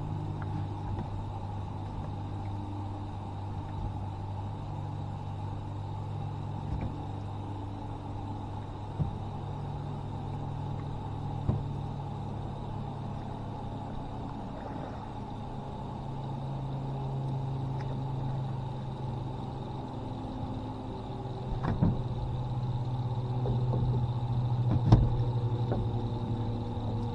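Steady low engine-like hum whose pitch drifts slightly, under a thin steady high tone. A few sharp knocks come through it, the loudest near the end, as the angler handles his rod on the boat while fighting a fish.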